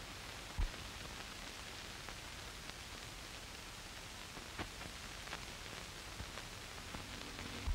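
Steady hiss of an old optical film soundtrack with no dialogue, broken by a low pop about half a second in, a few faint clicks, and another pop at the very end.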